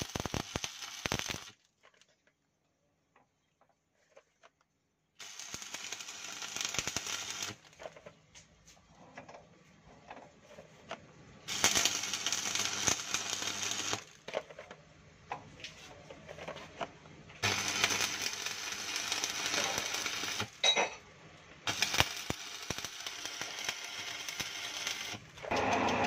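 Electric arc welding on a drive-shaft yoke joint: about five runs of hissing, crackling arc, each a few seconds long, with short pauses between them and a longer quiet gap near the start. Near the end a steady hum comes in.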